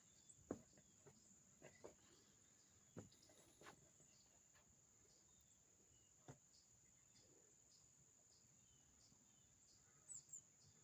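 Near silence outdoors: a steady high-pitched insect trill, with a few faint soft clicks and taps scattered through it, a pair of them near the end.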